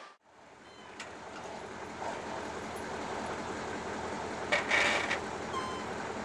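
Engine of a heavily log-loaded Ural timber truck running steadily under load as it drives through snow. The sound fades in at the start and rises in a louder rush about four and a half seconds in.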